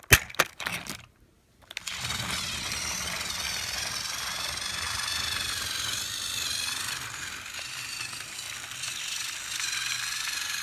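A few sharp clicks, then a battery-powered toy train engine running on plastic track: the steady whirr of its small motor and gears, with a wavering whine.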